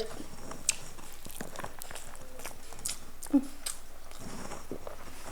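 A person eating: faint chewing with a few light clicks scattered through, and a short murmur about three seconds in.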